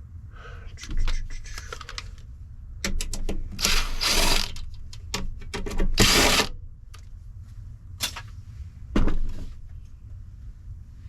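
Hand tools and the metal parts of a light fixture being worked apart: scattered clicks and clanks, with two longer scraping rattles about four and six seconds in.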